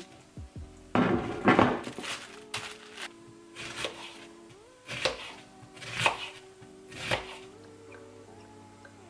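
Background music with held tones, over a loud kitchenware clatter about a second in and then knife cuts through a red onion onto a plastic cutting board, roughly one a second.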